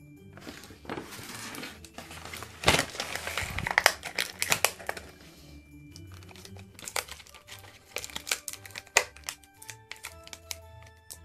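Toy packaging crinkling and tearing as a playset is unboxed, with scattered clicks and taps of parts being handled, over background music.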